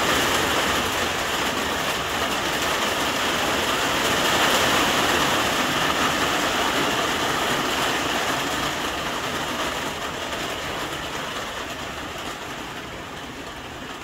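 Rain falling on a small greenhouse, a steady even hiss with no separate drops standing out. It grows gradually quieter over the last several seconds.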